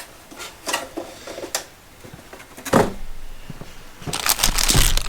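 Unboxing handling noises: a few light clicks and knocks, a louder thump about two and a half seconds in, then packaging crinkling near the end.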